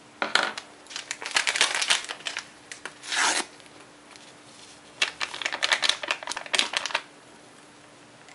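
A paper sachet of baking powder being torn open and shaken out over a bowl of flour: crinkling and rustling paper in three bursts, the last a run of quick crackles.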